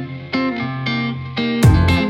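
Background music: plucked guitar notes at about two a second, joined near the end by a fuller, louder beat.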